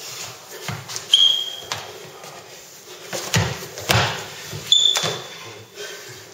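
Scuffling of a close-contact grappling exchange on a wooden floor: dull thumps about three to four seconds in as one partner is taken down to the floor, with scattered knocks of arms and feet. Two short, high, steady squeaks of shoes on the floor come about a second in and near five seconds; the first is the loudest sound.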